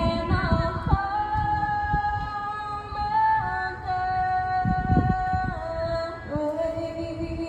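Music with a sung melody: long held notes that step down in pitch a few times, over a low rumbling backing.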